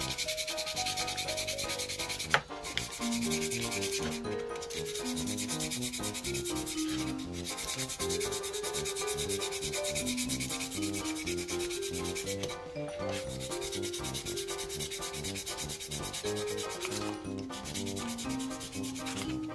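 Sandpaper rubbed by hand in quick back-and-forth strokes over the wooden handle of a Fulton ratcheting screwdriver, with short pauses every few seconds. A single sharp click about two seconds in.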